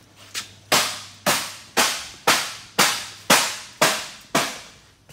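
Hammer striking a second-gen Dodge truck's steering column: eight hard blows, about two a second, each with a short ring, beating at a column they have no key for.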